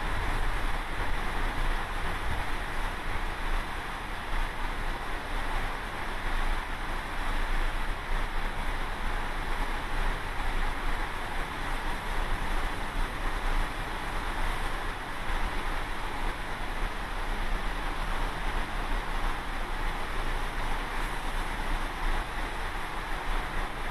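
Steady rush of open-ocean waves and wind heard from a ship under way, with wind rumbling on the microphone.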